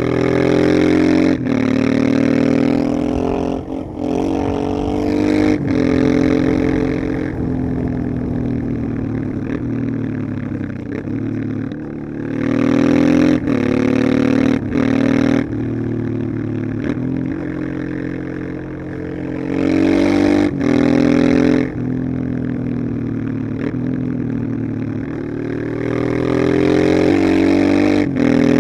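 1989 Honda Transalp XL600V's 583 cc V-twin under way. It pulls hard several times, the engine note rising and dropping back briefly at each quick upshift, and settles into easier, lower running between the pulls.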